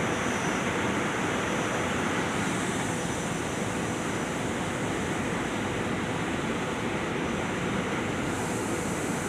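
SEPTA electric multiple-unit commuter train running through the station, a steady rushing rumble of wheels and traction equipment.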